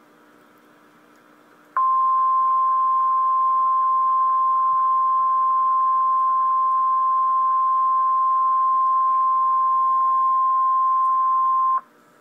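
Emergency Alert System warning alarm tone from the National Weather Service: a single steady high beep that comes on about two seconds in, holds for about ten seconds and cuts off sharply. It signals that a tornado warning message follows.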